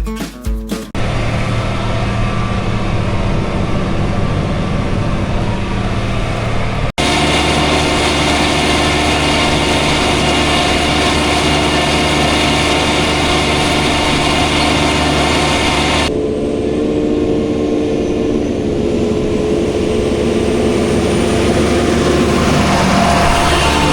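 Engine running steadily, heard in several clips joined by sharp cuts about a second in, at about seven seconds and at about sixteen seconds.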